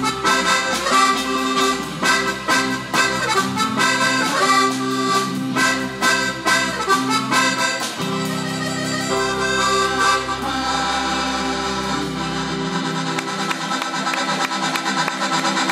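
Live band music led by a button accordion, with drum kit and keyboard. Drum strokes are prominent through the first half, then steadier held chords over a low bass take over.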